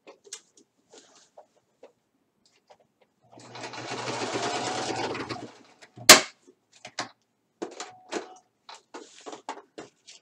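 Sewing machine running for about two seconds, a short run of stitching to tack the two waistband ends together, followed by one sharp click and then light clicks and fabric rustling.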